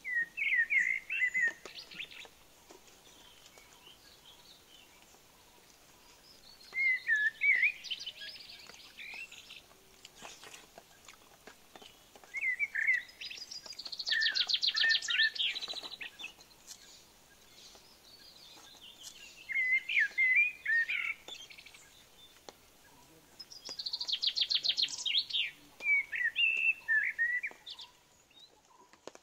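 A wild songbird singing in five separate phrases, one about every six seconds. Each phrase is a few quick whistled notes, and several run into a fast, high trill.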